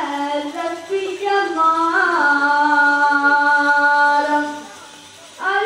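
A woman singing a slow folk melody, holding long steady notes, with a brief break near the end before the singing starts again.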